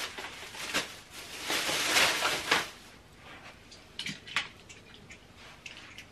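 Rustling and handling of craft supplies: a few seconds of shuffling and rustling, loudest about two seconds in, then a few light clicks and knocks about four seconds in.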